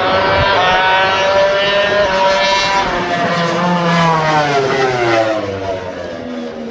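Racing motorcycle engine at high revs going past: its pitch climbs, then drops steadily as the bike passes and moves away.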